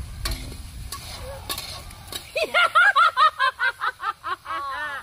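Women laughing loudly: a fast run of short "ha-ha" bursts starting about halfway through and tailing off near the end. Before it, a few faint clicks.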